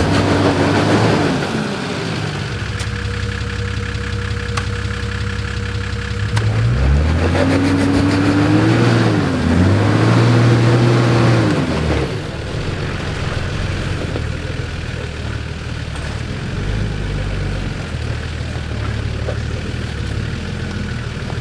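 Nissan Patrol ute's engine working through deep mud ruts. It revs up and falls back about a second in, then again in a longer, wavering rev from about seven to twelve seconds, and runs at low revs in between and afterwards.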